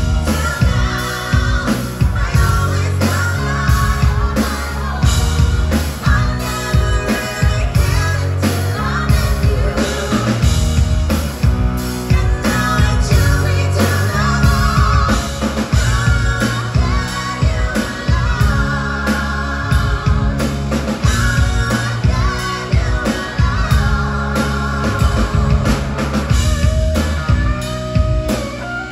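Live rock band playing: female voices singing long held, wavering notes over electric guitar, electric bass and a drum kit.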